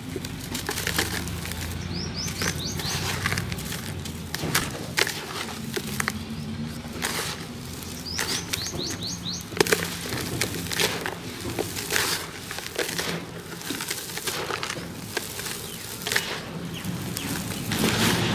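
Dry cement-and-sand mix crumbling and crunching in the hands, with gritty lumps breaking apart and sandy powder pattering down into a bucket in many short crackles. A bird chirps in quick little runs twice in the background.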